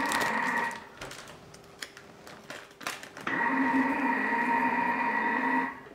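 Thermomix kitchen robot kneading bread dough in its dough mode, its motor running in spurts. It stops about a second in, with a few clicks and knocks during the pause, and runs again from about three seconds in until near the end.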